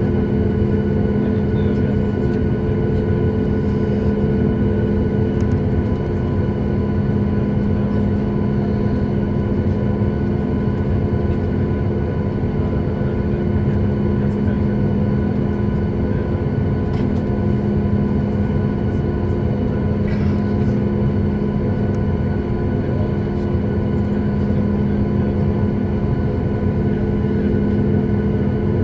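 Steady cabin noise of a Boeing 737 MAX 8 standing still with its CFM LEAP-1B engines at idle: an even rumble with several steady hums.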